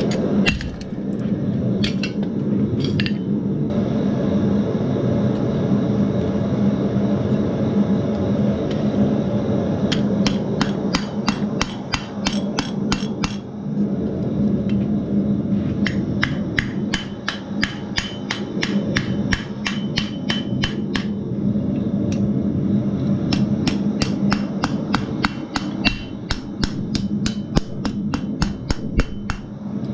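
Blacksmith's hammer striking hot steel on an anvil, shaping a strap hinge's rolled eye around the hinge pin used as a drift. The blows come at about three a second in three runs with pauses between them, over a steady low hum.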